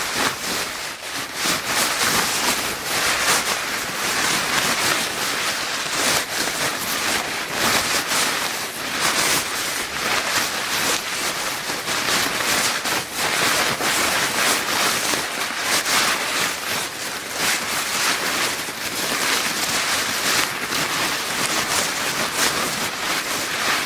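Paper bag being crinkled and crumpled continuously, a dense run of rustling crackles with no pauses.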